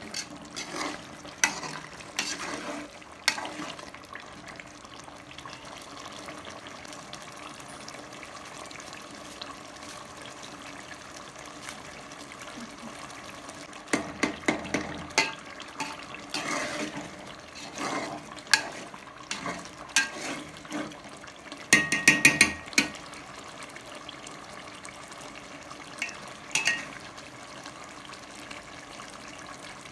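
Steel spoon scraping and clinking against an aluminium pot while stirring chicken curry masala, over the steady sizzle of the cooking food. The clinks come scattered, with a quick run of ringing clinks about two-thirds of the way through.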